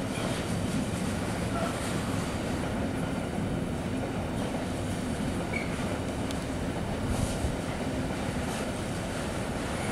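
Freight train of intermodal container wagons rolling past at steady speed: a continuous low rumble of wheels on rail with light clatter.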